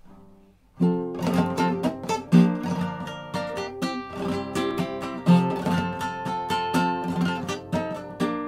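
Classical guitar playing plucked chords in an even rhythm, starting about a second in: the song's instrumental introduction, with no singing yet.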